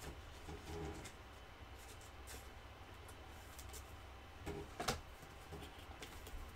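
Faint rustling and soft clicks of a stack of basketball trading cards being flipped through by hand, with two sharper clicks about four and a half seconds in.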